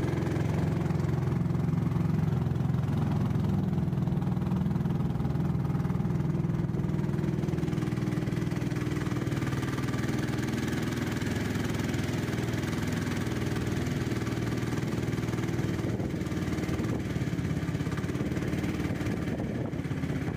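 Engine of a small wooden motor boat running at a steady speed while under way, an even, unchanging drone.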